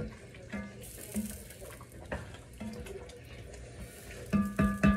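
A spatula stirring simmering curry chicken in an enamel-coated pot, the wet sauce sloshing. Near the end come several sharp knocks of the spatula against the pot.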